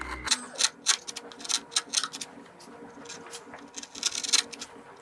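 A small #11 gouge (3 mm veiner) slicing a run of short cuts into wood. The light scraping strokes come several a second, with a busier flurry about four seconds in.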